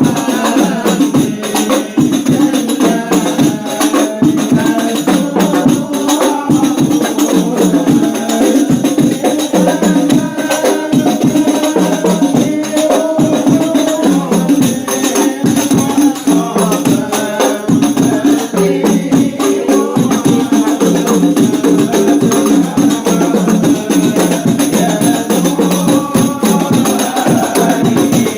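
Hand-struck rebana frame drums, tambourine-like, keep a fast, steady rhythm under a group of voices chanting devotional praise in unison.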